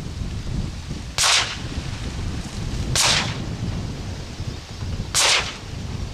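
Three shotgun shots at a flock of ducks, about two seconds apart, over a steady low wind rumble on the microphone.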